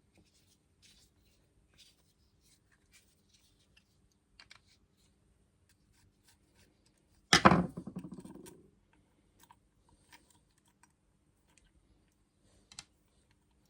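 Small clicks and taps of tools and small metal parts being handled, with one loud sudden clatter about seven seconds in that dies away over about a second.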